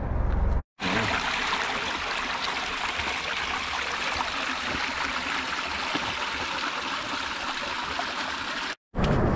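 Shallow hot-spring-fed creek water rippling over stones, a steady rush close by, which starts and stops abruptly with sudden cuts. A low rumble is heard briefly at the very start and again at the end.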